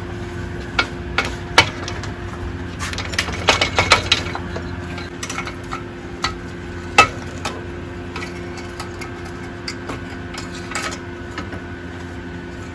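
Metal tools and parts clinking and tapping in irregular knocks, busiest about three to four seconds in, over a steady background hum.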